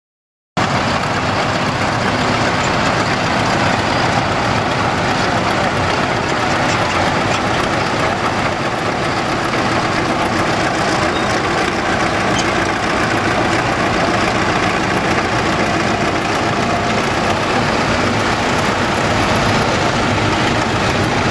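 Vintage crawler tractors' diesel engines running steadily, cutting in abruptly about half a second in.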